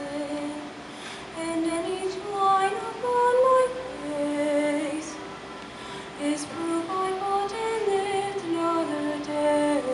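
High-school show choir of mixed voices singing a song, long held notes moving up and down in steps.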